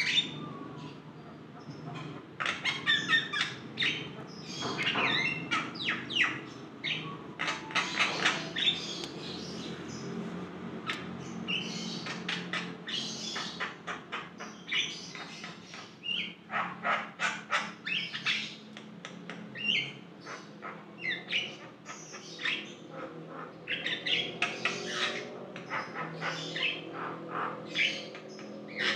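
Javan myna singing vigorously: a long, varied run of short whistles, chattering and harsh notes in quick clusters with brief pauses between them.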